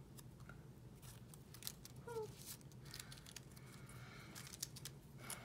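Faint rustling and light taps of paper and sticker sheets being handled, over a low steady room hum.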